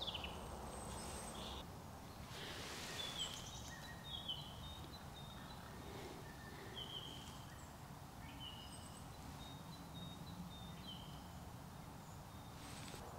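Quiet woodland ambience: a small bird calling with short, high chirps every second or so over faint steady background noise, with a soft rustle about two and a half seconds in.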